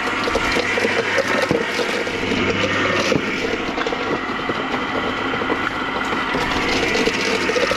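Electric garden shredder running steadily as fish frames are milled into berley, a steady motor hum with irregular crunching and clicking from the pieces being chewed up.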